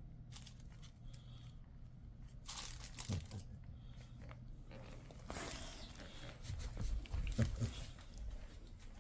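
Crinkly material being crunched and rustled, in two spells: one about two and a half seconds in, and a longer one from about five seconds in, with a few soft thumps near the end.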